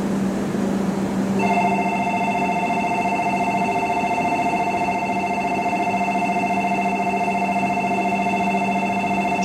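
Shinkansen platform departure bell, an electronic ringing in two close pitches that starts about a second and a half in and rings on steadily, the signal that the waiting train is about to leave. A steady low hum lies under it.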